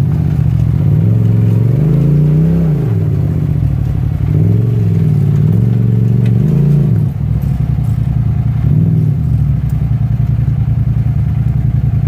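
Four-door side-by-side UTV's engine revving up and down in two long surges as it pulls its way up a rock ledge, then settling to a steady lower run with one short blip of throttle near the end.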